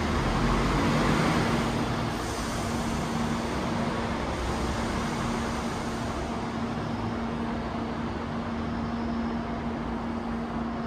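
A stationary Chikuho Electric Railroad Type 2000 tram's onboard equipment humming steadily at one low pitch over a broad rumble, slightly louder in the first couple of seconds.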